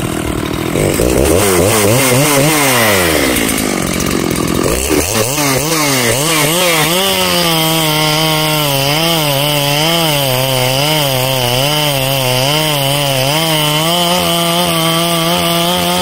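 Makita/Dolmar 7900-series 79 cc two-stroke chainsaw revving up and falling back in the first few seconds, then cutting through a pine log under load. Its note wavers up and down about once a second as the saw is rocked back and forth like a handsaw, the wrong and inefficient way to cut.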